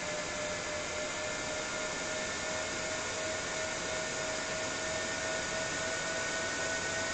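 12 V, 6 W side-mounted ventilation fan for a van or motorhome body running: a steady rush of air with a motor whine whose pitch creeps slightly upward.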